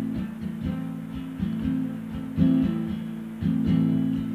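Cutaway acoustic guitar strumming slow chords, a new stroke about every second, played without singing between sung lines.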